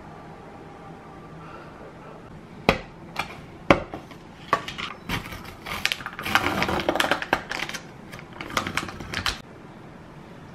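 Plastic yogurt tub handled with a few sharp clicks and knocks, then its sealed lid peeled back with rapid crinkling and crackling that lasts about four seconds.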